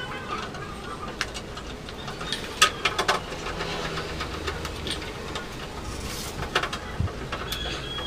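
Scattered sharp clicks and light knocks at irregular intervals over a steady low background hum.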